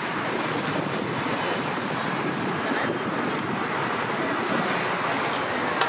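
Steady rushing outdoor background noise of wind on the microphone mixed with road traffic, with a few faint clicks near the end.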